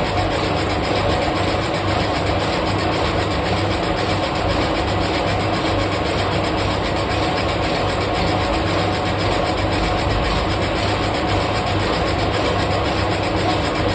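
Lathe running steadily, a constant motor hum over a steady rushing noise with no breaks or changes.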